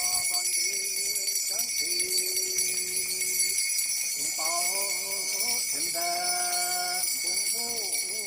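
Many bronze bells jingling continuously as they are shaken, a dense high shimmer. Held, bending pitched tones come and go beneath it.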